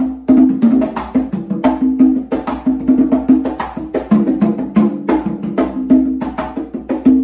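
A set of congas played by hand in a fast salsa pattern, mixing sharp slaps with ringing open tones at two or three different drum pitches.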